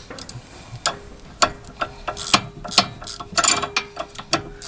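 Wrench work on a car's sway bar link fastenings: a run of irregular metallic clicks and clinks, like a ratchet wrench and tools on the link. A faint steady hum sits underneath from about a second in.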